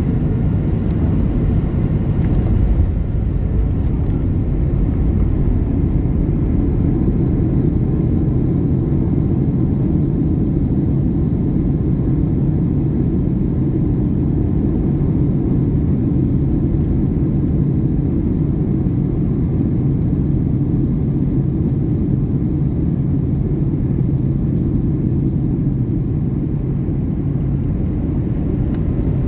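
Steady low rumble inside the cabin of a Boeing 737-800 with its CFM56 engines running, heard from a window seat. A low steady drone becomes stronger near the end.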